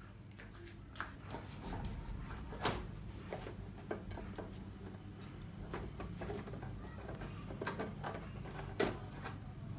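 The reflector sheet of an LED TV backlight being handled and fitted into place: light rubbing with scattered soft clicks and taps, a few sharper ones near three seconds and near the end, over a low steady hum.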